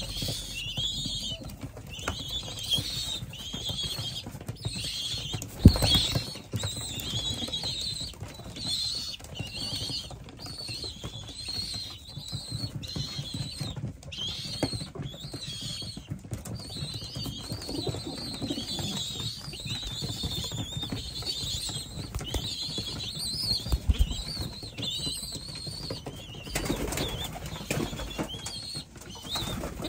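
Racing pigeons jostling and flapping their wings close by, over a continual run of short high chirps repeating about twice a second. Two sharp thumps stand out, about six seconds in and again around twenty-four seconds.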